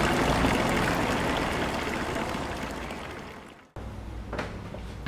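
Water pouring from a stone fountain spout into its basin, a steady splashing that fades out over about three and a half seconds. After it stops, a single light knock, like a step on a wooden stair.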